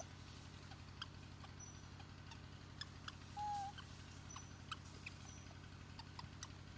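Faint, short animal squeaks and chirps with scattered sharp clicks over a steady low hum, one brief, louder call about three and a half seconds in.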